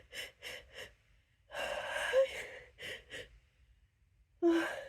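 A person's quick gasping breaths during a sneeze build-up from a tickling nose: four short breaths, a longer, louder breathy burst about a second and a half in, two more short breaths, then a short voiced gasp near the end.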